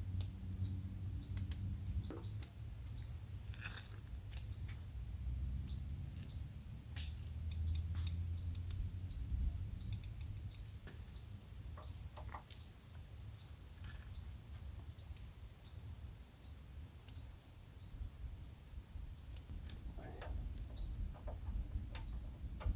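A bird chirping over and over, a short high chirp about twice a second, over a low rumble.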